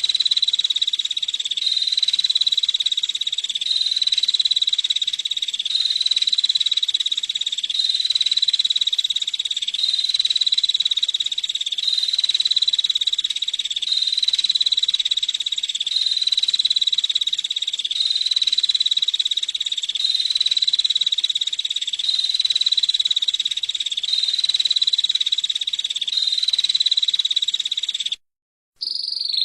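Female prinia (prenjak) giving a continuous, high-pitched rapid trill, repeated in very even phrases about a second and a half long. It cuts out briefly near the end, then resumes.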